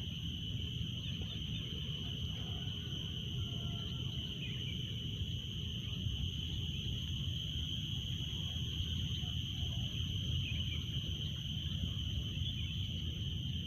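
Outdoor ambience: a steady high-pitched whine over a low rumble, with a few faint short bird chirps now and then.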